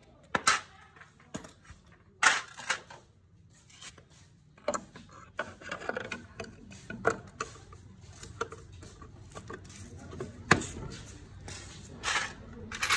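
Scattered metal clicks, clinks and knocks as tools and a motorcycle engine's side cover are handled and fitted back over the flywheel.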